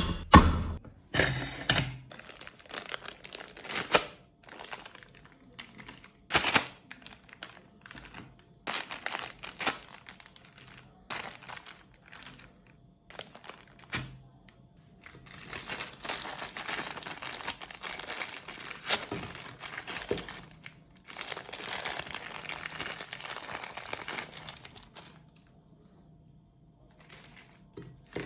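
Crinkling and crackling handling noise in short, irregular bursts, then two longer continuous stretches of several seconds each.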